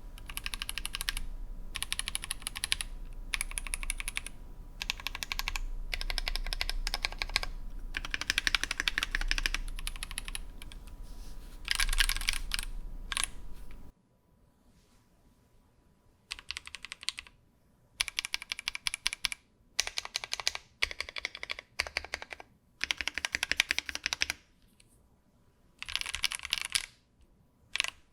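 Fast typing in bursts on a mechanical keyboard with Frog linear switches. For roughly the first half the switches are the stock factory-lubed ones; after that they are hand-lubed, and the typing comes in shorter bursts with quiet gaps.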